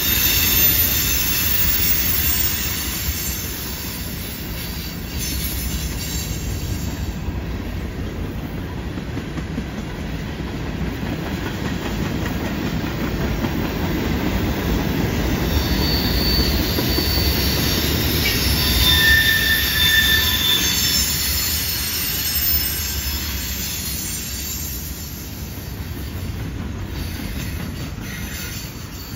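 CN freight train of tank cars, gondolas and autoracks rolling past through a curve, with a steady wheel-on-rail rumble and clatter. High-pitched wheel squeal from the curve comes and goes, strongest in the middle stretch, and the sound eases off near the end.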